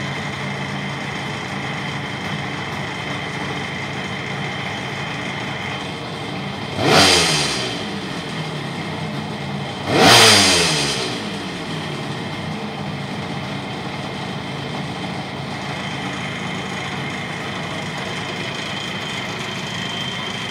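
1972 Kawasaki S2 350's air-cooled two-stroke triple idling steadily, blipped twice by the throttle. The first blip comes about seven seconds in and the second about three seconds later. Each time the revs shoot up and fall back to idle.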